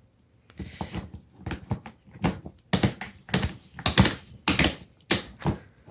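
Clutch collar of a DeWalt DCD800 cordless drill being turned through its detent settings, clicking in quick uneven runs.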